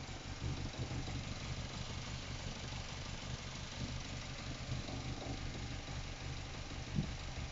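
Mazda MX-5 NC's four-cylinder engine idling roughly and unevenly, its note pulsing irregularly, with one sharper knock about seven seconds in. This is the very rough idle the car is showing.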